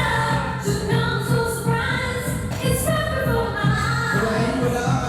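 Dance music with a sung vocal over a steady bass beat.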